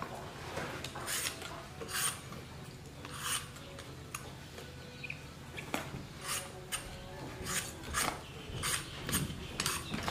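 A handheld vegetable peeler scraping the skin off a firm green fruit: a series of short rasping strokes, irregularly spaced at about one a second and coming closer together in the second half.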